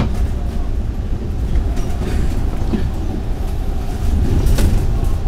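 MAN A95 double-decker bus on the move, heard from inside: a steady low rumble of engine and road, with a few rattles from the body, one louder clatter about four and a half seconds in.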